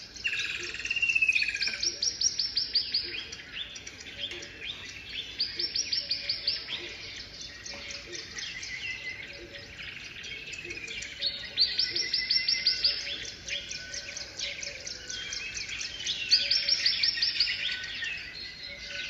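Birdsong from a nature video's soundtrack playing through a Surface Laptop 4's built-in speakers: steady chirping, swelling into four bursts of rapid trills.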